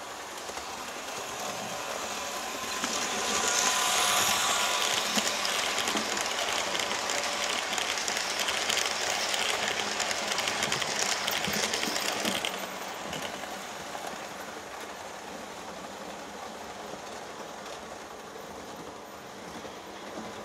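Märklin H0 model ÖBB class 1118 electric locomotive, fitted with a high-performance motor and ball bearings, running with a train of TEE passenger cars on metal track: motor hum and wheels rattling over the rail joints. It grows louder as the train comes by, is loudest for about nine seconds, drops off sharply about twelve seconds in, then carries on more quietly.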